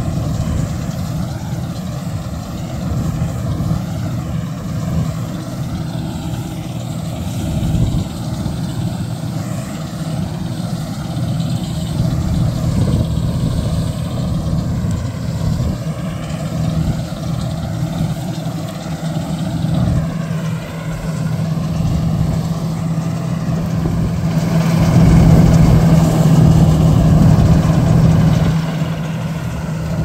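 Kartar 4000 combine harvester running steadily as it harvests soybeans, its engine and threshing machinery a continuous low hum. The hum swells for a few seconds near the end, then eases.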